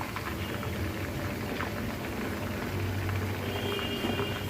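Hot oil bubbling and crackling steadily around a whole chicken deep-frying in a karai.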